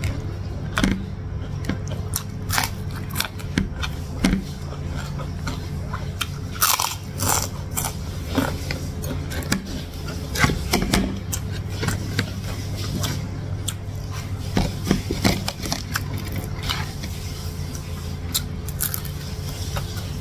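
Close-miked eating: chewing, wet mouth clicks and crunchy bites of rice and salted fish eaten by hand, coming irregularly over a steady low hum.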